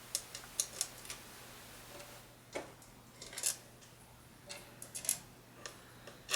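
Small machine screws clicking and tapping against the metal pedal enclosure as they are picked from their bag and set into the mounting holes by hand: a scatter of light, irregular ticks.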